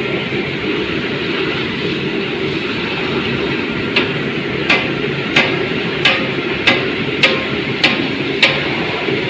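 Fish fingers frying in oil with a steady sizzle. In the second half come about eight sharp, evenly spaced clicks.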